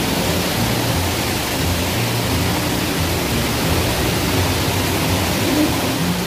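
A steady, loud rushing hiss that spreads evenly from low to high, with faint low tones shifting underneath.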